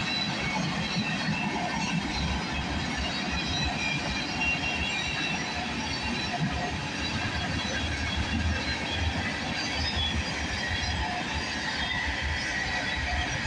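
Freight train cars rolling past on the rails with a steady rumble, and short high wheel squeals now and then.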